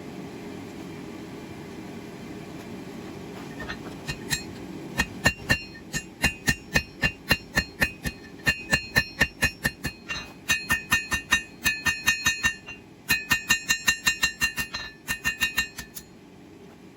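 Blacksmith's hammer striking hot 1084 high-carbon steel on an anvil while shaping a knife blade. There are about three to four blows a second, each with a bright metallic ring, in runs broken by short pauses. A steady rushing noise comes first, and the hammering starts about four seconds in.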